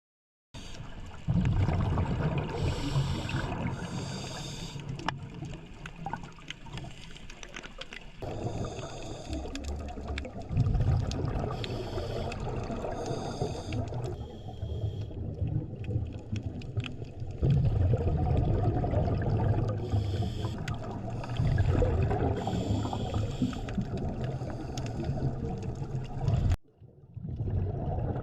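Underwater sound of scuba divers breathing through their regulators: bubbling exhalations and a low rumble of water, broken every few seconds by short hissing breaths. The sound drops out briefly near the end and then resumes.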